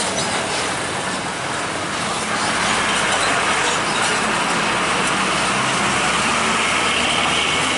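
Diesel box truck driving slowly past close by, its engine running and tyres rolling; the sound grows a little louder about two seconds in as it comes alongside.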